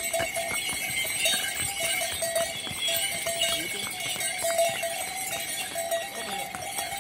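Bells on pack mules' harnesses ringing in short repeated jingles, with hooves clopping on a stone-paved trail.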